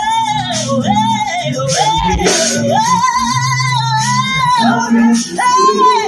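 Live gospel music: a female lead singer belting a high vocal line into a microphone in short arching phrases with vibrato, over a band with bass and drums.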